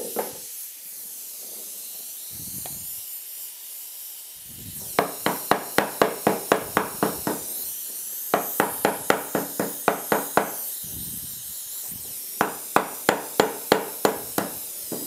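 Oxy-fuel torch hissing steadily while a heated copper piece is hammered flat: three runs of quick, sharp metal strikes, about four or five a second.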